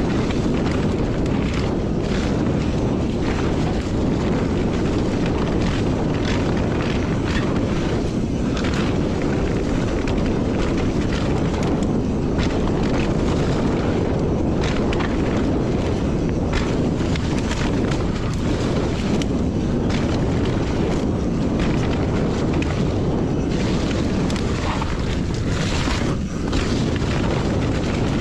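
Wind buffeting the microphone over the rumble of a Santa Cruz Nomad mountain bike rolling fast down a dirt trail, with frequent short clattering knocks from the bike over rough ground.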